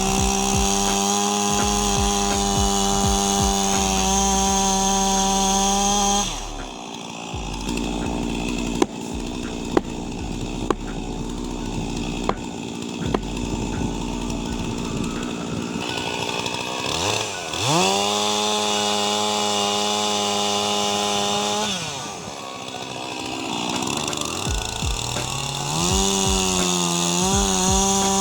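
Chainsaw running at high revs in three spells of several seconds, dropping back between them, then revving up again with a quick rising whine. A few sharp knocks, about a second apart, sound during the first lull.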